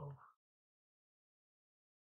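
Near silence: the last spoken word trails off in the first moment, then the soundtrack is dead quiet.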